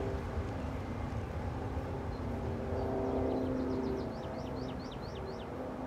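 Boeing 737-800's CFM56-7B jet engines at takeoff thrust as the airliner lifts off and climbs away, a steady low rumble with a hum. From about three seconds in, a bird sings a quick run of about a dozen short high chirps over it.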